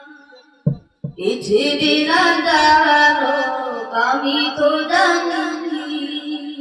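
A boy's solo voice singing a Bengali Islamic devotional song (gojol). A held note fades out and, after a brief pause with two soft pops, he sings a long drawn-out, ornamented phrase with wavering pitch and no clear words.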